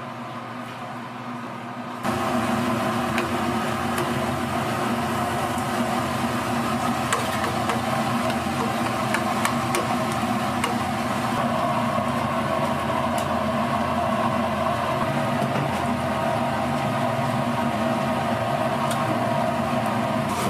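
Battered strips deep-frying in a vat of oil, sizzling with scattered faint pops, over a steady kitchen machine hum that steps up in level about two seconds in.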